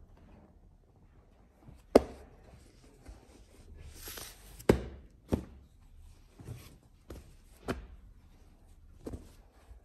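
Folded wax-print fabric lengths being handled and set down on a table: a brief rustle and several sharp knocks, the loudest about 2 seconds in and just before 5 seconds.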